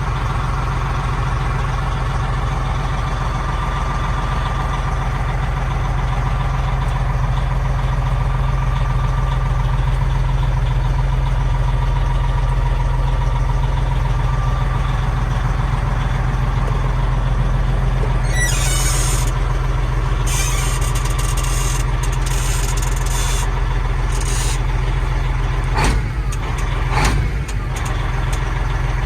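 Peterbilt 378 semi truck's diesel engine running steadily with a deep drone. From about two-thirds of the way in come several short bursts of air hissing, and near the end a couple of sharp knocks as the engine note briefly dips.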